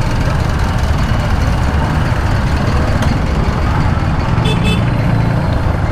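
Yamaha Serow XT250's air-cooled single-cylinder engine idling in stopped traffic, mixed with the steady rumble of surrounding vehicles. A brief high-pitched chirp about four and a half seconds in.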